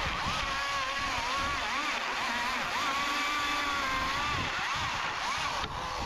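Stihl top-handle chainsaw running at high speed while cutting through an OSB roof board. Its whine dips in pitch several times as the chain bites and then recovers.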